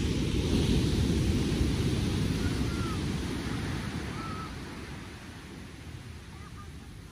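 Wind buffeting the microphone over the rush of surf on the beach. The sound swells in the first couple of seconds and then eases away.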